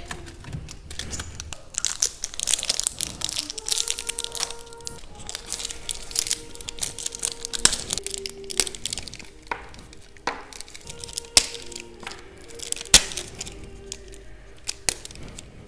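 Crinkling and tearing of a plastic chocolate-bar wrapper, then a few sharp snaps as pieces of chocolate are broken off the bar by hand, over background music.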